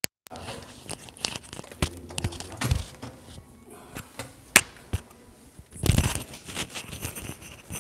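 Handling noise from a clip-on lavalier microphone being fitted onto a shirt: irregular rustling and rubbing against fabric, broken by sharp clicks and knocks, with the sharpest click about four and a half seconds in and a louder rustle around six seconds.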